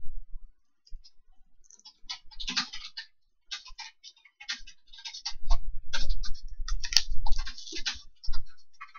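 Fingers picking at and peeling the plastic packaging off a DVD case: scattered short crackles and clicks, with low handling thumps in the middle stretch.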